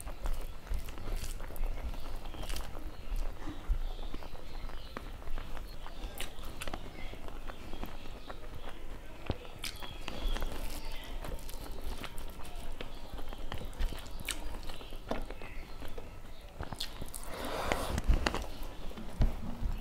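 Close-miked eating sounds: chewing and wet mouth clicks, with fingers squishing and mixing rice and dal against a steel plate. There is a louder stretch of noise near the end.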